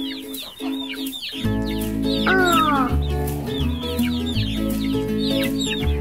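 Baby chick peeping: quick, high, falling cheeps repeated over and over, over background music whose bass comes in about a second and a half in.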